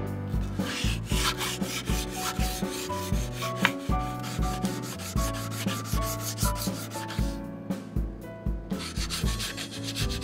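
Sandpaper rubbing back and forth over a wooden cutting-board blank in hand-sanding strokes, heard over background music with a steady beat.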